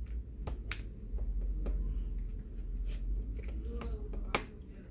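Scattered sharp clicks and light taps of hands working on small laptop internal parts. The loudest click comes near the end, over a low steady hum.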